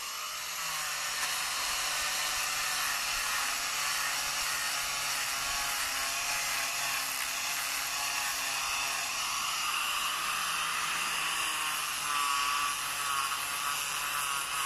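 Small electric rotary carving tool running steadily while it works the wood, a continuous whirring whose pitch wavers slightly near the end.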